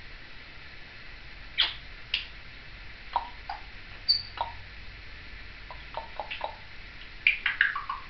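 Timneh African grey parrot chattering in short sounds: two sharp clicks, a few short mid-pitched notes, a brief high whistle about halfway, and near the end a quick run of falling chirps.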